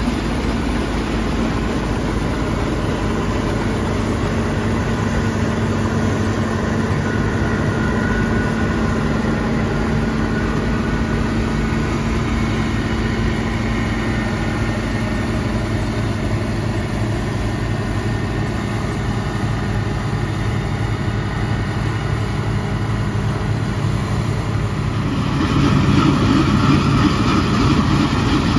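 Bizon Z056 Super combine harvester running while harvesting, its SW-400 six-cylinder diesel engine holding a steady drone. The sound grows louder and rougher near the end.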